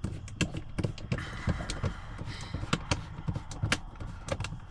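Irregular light clicks and knocks of plastic trim and screws being handled and fitted under a car's dashboard, with a short scraping rustle a little after a second in.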